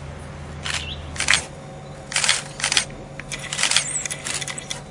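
Camera shutters clicking irregularly, a dozen or so sharp clicks, some in quick runs.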